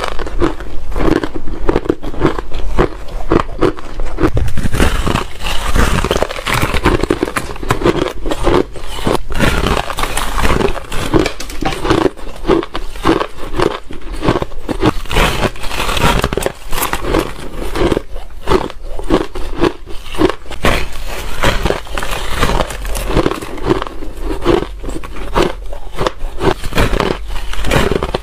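Ice being bitten and chewed close to the microphone: a dense, continuous run of loud crunches and crackles.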